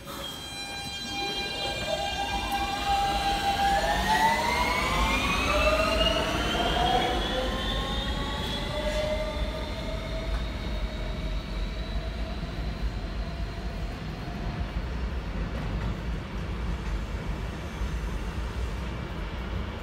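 Siemens IGBT-VVVF propulsion on a Kawasaki R160B subway train pulling away. A chord of steady whines gives way to several tones rising in pitch together as the train accelerates, then fades as it moves off, over a low rumble of wheels on rail.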